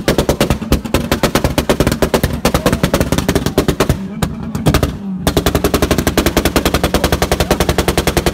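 A hatchback's engine bounced on the rev limiter, its exhaust crackling out a rapid machine-gun string of pops over the steady engine note. There is a short break about four to five seconds in, then the pops resume.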